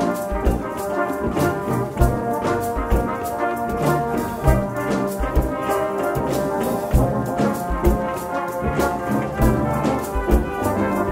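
Brass band playing: cornets, euphoniums, tubas and trombones in full harmony over a steady drum beat.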